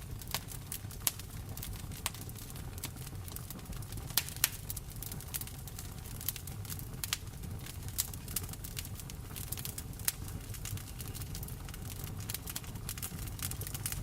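Wood fire in a fireplace crackling, with sharp irregular pops, the loudest two close together about four seconds in, over a steady low rumble of rain.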